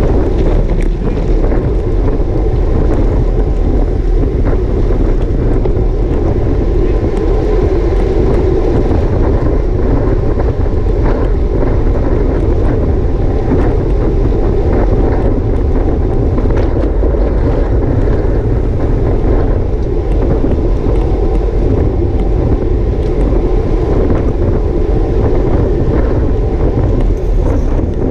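Steady wind rushing over an action camera's microphone on a road bike in motion, with low road and tyre rumble underneath and a few faint clicks.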